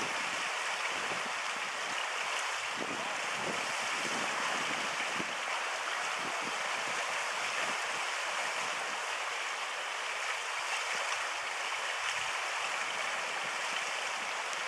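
Fast-flowing stream rushing over rocks: a steady, even water noise.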